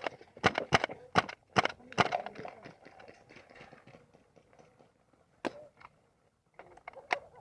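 Airsoft guns firing single shots in quick succession as cover fire: about eight sharp cracks in the first two seconds, then a few scattered shots later.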